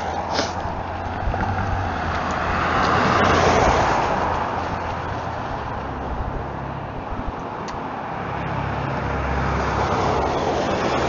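Road traffic: cars passing on a multi-lane street, the noise swelling about three seconds in and again near the end.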